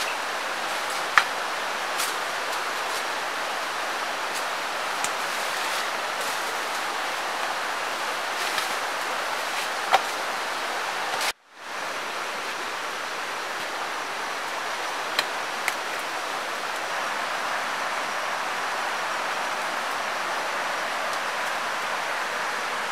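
Steady rushing of a nearby stream, with a few sharp knocks from digging in the soil. The sound cuts out for a moment about eleven seconds in.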